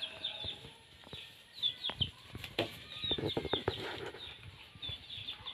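Birds chirping over and over in short high notes, with scattered sharp knocks and a stretch of rustling, as cattle shift and feed on hay in a wooden pen.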